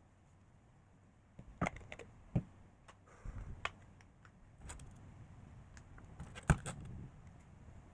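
A string of irregular light knocks and clicks, starting about a second and a half in, with the loudest knock near the end.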